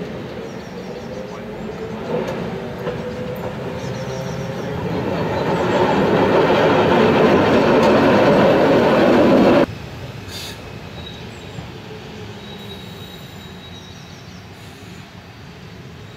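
CJ Gem 4/4 401 metre-gauge locomotive rolling slowly over curved points toward and past, its wheels squealing and clattering on the track. The sound grows steadily louder, then cuts off suddenly about ten seconds in, leaving a fainter, more distant rumble.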